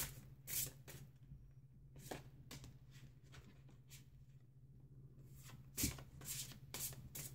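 Oversized tarot cards being shuffled overhand by hand: faint, irregular soft slaps and flicks as packets of large cards drop onto the deck, sparser in the middle. A steady low hum runs underneath.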